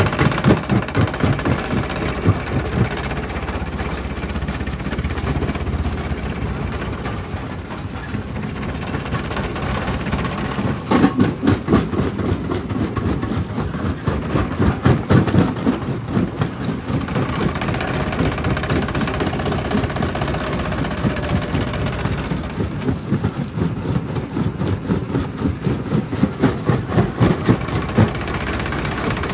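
Stone jaw crusher running with a continuous mechanical din, broken by two spells of rapid knocking and cracking as rock is crushed between its jaws: one around the middle and one near the end.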